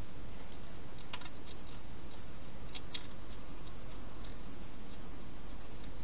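Wild hedgehog eating at a bowl inside a plastic feeding box: irregular small crunching clicks of chewing, in small clusters about a second in and again about three seconds in, over a steady background hiss.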